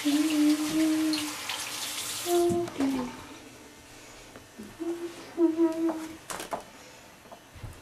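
A person humming a slow tune in short held notes, over shower water running that stops about two and a half seconds in. A few light clicks come near the end.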